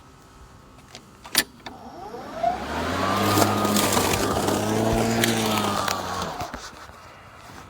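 A sharp click, then a machine hum with a steady pitch that swells in over about a second, holds for a few seconds and fades away.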